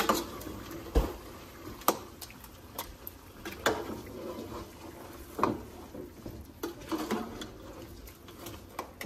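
Chicken karahi with tomatoes and green chillies cooking in the pan, its watery contents sizzling and bubbling steadily, with a spatula knocking against the pan now and then.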